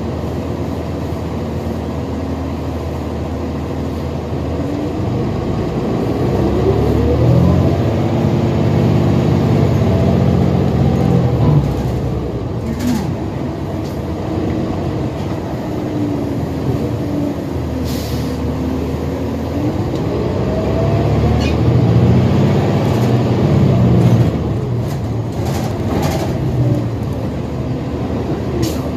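2020 New Flyer XD60 Xcelsior articulated diesel bus heard from inside the cabin while under way. The engine and drivetrain note rises in pitch and grows louder as the bus accelerates twice, about five and twenty seconds in, and each time drops off abruptly. A few short clicks and rattles come through.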